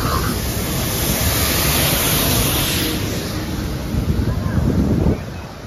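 Wind buffeting the microphone: a loud rushing rumble over the noise of a busy street crowd. The rumble drops away suddenly near the end.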